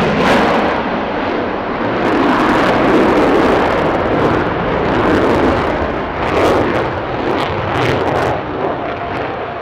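Lockheed Martin F-22 Raptor's twin Pratt & Whitney F119 turbofans running in afterburner during a low display pass: a loud, continuous jet rumble with a few sharp crackles in the second half.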